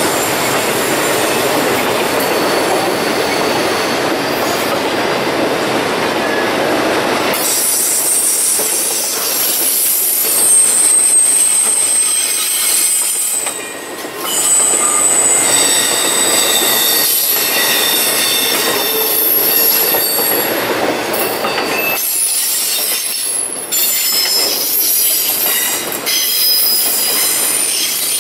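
BNSF intermodal train of trailers on flatcars rolling past, wheels rumbling on the rails while the flanges squeal in high, thin tones. About seven seconds in the rumble drops away and the squealing carries on over a lighter clatter.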